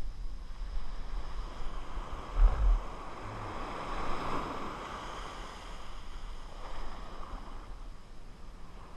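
Small surf breaking and washing up the sand at the water's edge, swelling about four seconds in. Wind rumbles on the microphone throughout, with a brief loud buffet about two and a half seconds in.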